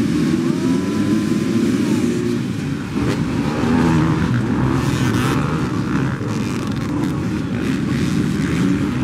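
A full row of dirt bikes launching together off the start line, many engines revving hard as they accelerate away, with bikes passing close by.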